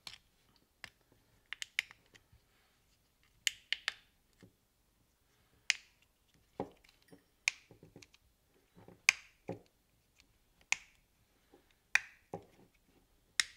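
A new plastic replacement case for a Vauxhall/Opel Astra G remote key fob being pressed and clicked shut: a dozen or so sharp clicks and taps at irregular intervals, as the new, stiff snap clips are forced home.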